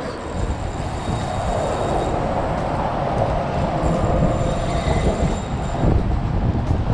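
Steady low rumble of traffic crossing the concrete bridge deck overhead, heard from underneath, mixed with wind and water noise.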